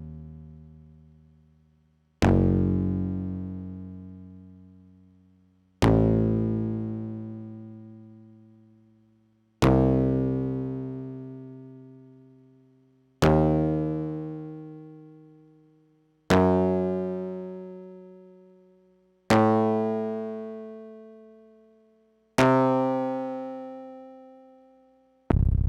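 Korg EX-800 synthesizer playing single bass notes one after another, about every three to four seconds, each at a different pitch. Each note starts sharply and fades away slowly over about three seconds.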